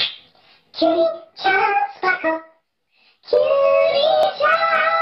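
Sung intro jingle: a few short sung phrases, a brief pause, then long held notes about two-thirds of the way in.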